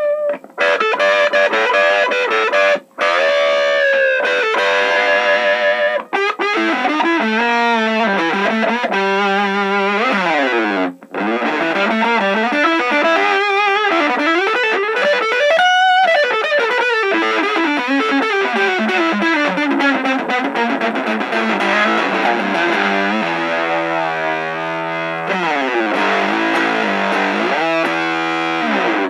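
Telecaster-style electric guitar played through a Sola Sound Tone Bender Professional MK II fuzz pedal: a thick, sustaining fuzz tone in lead lines full of slides and string bends. The playing is broken by a few short gaps and stops abruptly at the end.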